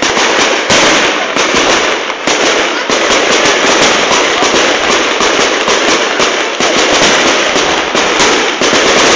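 Fireworks display: aerial shells bursting overhead, with many loud bangs in quick succession over continuous crackling.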